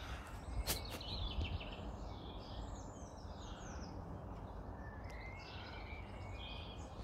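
Small birds chirping repeatedly over a steady low background noise, with two sharp clicks a little under a second in.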